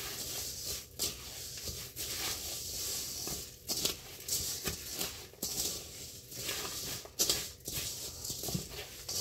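A spatula stirring a sticky oat, honey and peanut butter granola mixture in a stainless steel bowl, with irregular scraping and rustling strokes roughly one a second.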